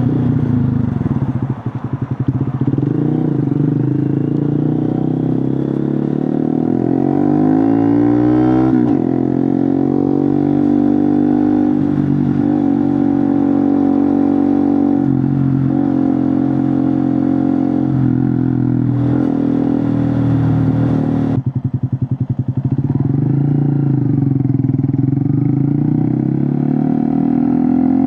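Honda Monkey 125's single-cylinder four-stroke engine running through a Scorpion titanium full exhaust with the baffle out, while being ridden. The revs climb over the first several seconds, then hold steady. Nearly three-quarters of the way through, the throttle drops off sharply, then the revs build again.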